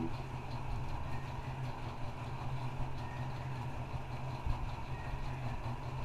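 A steady low hum, like a motor or fan running, with a faint hiss over it.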